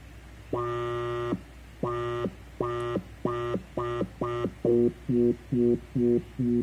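Homemade pocket XOR drone synthesizer sounding a buzzy low drone at one steady pitch, chopped into pulses by an LFO sent to the filter cutoff. The pulses start at nearly a second long and get shorter and quicker, about three a second near the end, where they also sound duller.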